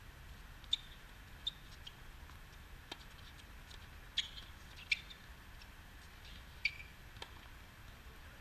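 Doubles tennis rally on a hard court: sharp racket strikes and ball bounces at uneven intervals, some followed by brief sneaker squeaks on the court surface.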